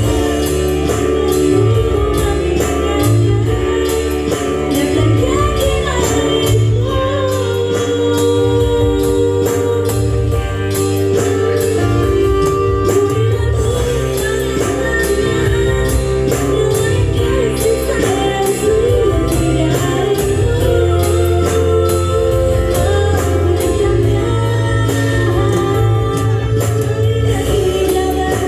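Live music from an electronic keyboard organ (orgen tunggal) with a steady beat: sustained melody notes over a pulsing bass, with tambourine-like percussion ticking evenly throughout.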